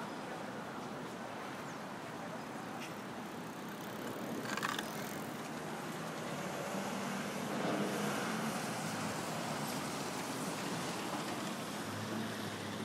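Busy city street ambience with a steady wash of passing traffic. A brief sharp sound stands out about a third of the way in, and a low engine hum is heard later.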